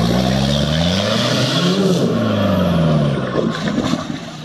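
Off-road 4x4's engine revving under load as it pulls up out of a muddy hole, the revs rising and falling several times, then easing off about three seconds in.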